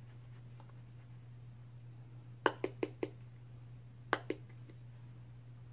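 Light clicks from a loose powder jar and makeup brush being handled: a quick run of four, then two more about a second and a half later, over a steady low hum.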